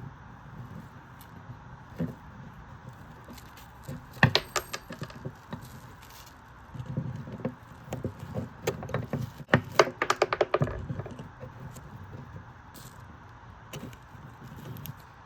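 Hand-handling clicks and rattles as a 1/4-inch TS jack connector and its housing are worked loose from a speaker cabinet's input panel: a few sharp clicks about four seconds in, then a quick run of clicks and rattles around ten seconds in.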